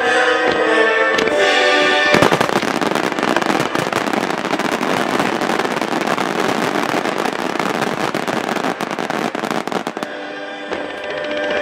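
Music plays, then about two seconds in a dense, rapid barrage of aerial firework shells bursting and crackling sets in and goes on for about eight seconds before easing off near the end.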